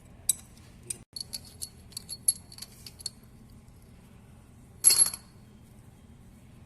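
Loose steel parts clinking against each other. A quick string of light, ringing metallic clinks runs for about three seconds, then one louder clatter comes about five seconds in.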